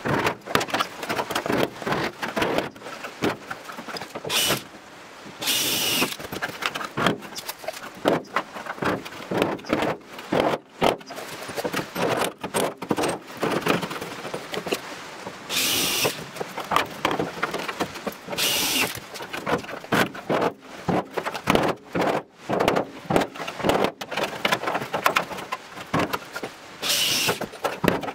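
Hammer driving a chisel through the rusted sheet steel of a VW Beetle's rear wheel arch: rapid, irregular metal-on-metal blows, broken by a few brief high-pitched sounds.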